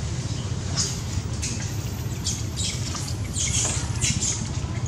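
Steady low rumble of outdoor background noise, with a scatter of short, high, hissy sounds.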